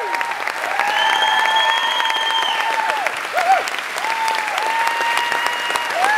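Audience applause, a dense even clatter of clapping, with several long held high-pitched calls rising out of it.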